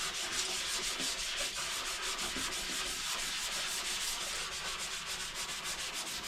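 Sandpaper rubbed by hand on a plastic dirt bike fuel tank, in quick, even back-and-forth strokes.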